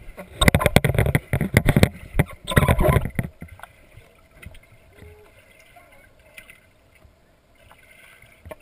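Water splashing and sloshing close to the microphone for about three seconds, then dying down to a faint background with a few small drips and ticks.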